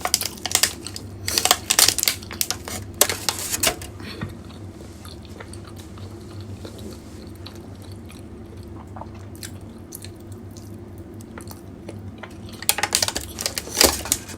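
A person eating suman, a sticky rice cake: close-up chewing and mouth sounds. A cluster of sharp crackles comes in the first four seconds and again near the end, with quieter stretches between.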